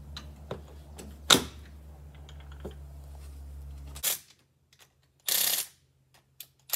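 Metal clicks of bolts and tools being handled on the tractor's PTO housing, one sharp and loud, then short bursts of a cordless power driver running in the bolts that hold the cover.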